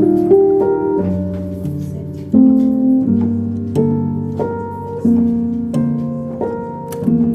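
Soft background piano music: chords struck about once a second, each left to ring and fade.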